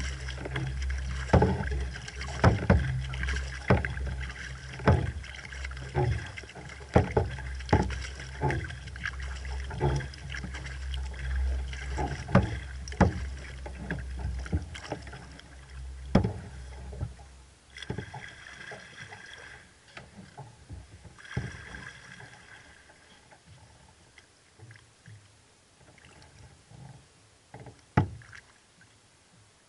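Sea kayak under paddle: a double-bladed Werner paddle dipping and splashing about once a second, with water rushing along the Necky Chatham 18's hull. About 16 seconds in the strokes stop and it falls to faint water sounds as the kayak glides, with one more splash near the end.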